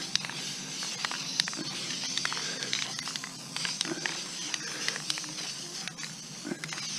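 Aerosol can of Duplicolor High Performance Wheel Coating spraying a steady hiss as a dust coat of base paint goes onto a masked alloy wheel, with scattered light clicks; the spray stops right at the end.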